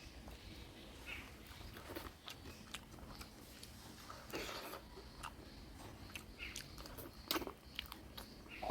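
Close-miked eating sounds of a person chewing and biting mutton curry: scattered wet mouth clicks and smacks, with a louder bite about halfway through and again near the end.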